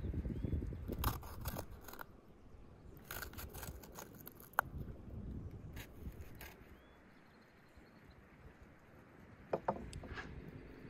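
Scattered short clicks and taps of a kitchen knife cutting greens and small fruit by hand, in a few brief clusters. A low rumble is heard at the start.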